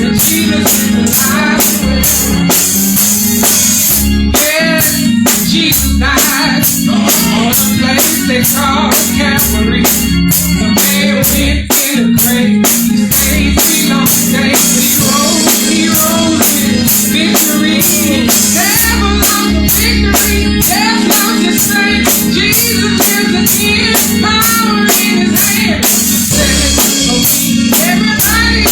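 Church praise band playing live on drum kit and guitar, with a steady beat of drum and cymbal strokes over a bass line.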